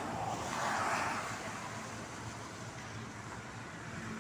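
Steady noise of rain and road traffic, with a vehicle swelling past about a second in.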